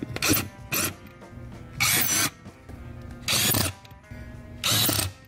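Cordless drill driving black drywall screws through a Pedal Haus dead pedal into the car's floor, in five short runs, the first two close together.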